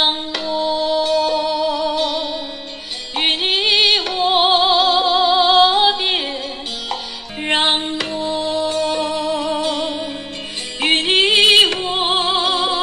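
A music sample with a female singing voice, with vibrato on held notes, played through laptop speakers for a speaker comparison. About seven seconds in the same passage starts over as playback moves from the Legion Y9000P 2022 to the R9000X 2022 (Legion Slim 7).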